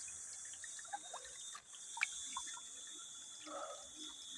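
River water trickling and dripping, with small scattered splashes and one sharp click about two seconds in.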